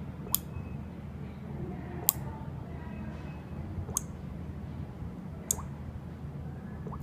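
Alarm panel's home-automation relays clicking as they are switched on and off from the app, five sharp clicks about one and a half to two seconds apart, most followed by a short rising tone, over a low steady hum.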